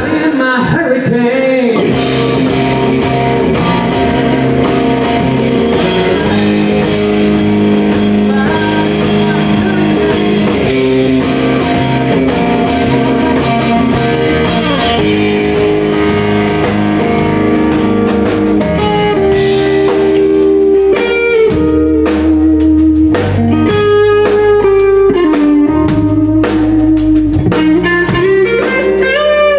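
Live blues-rock band with electric guitar and drums, a man singing over it in the first part. From about twenty seconds in, the electric guitar plays a lead line of picked single notes with string bends.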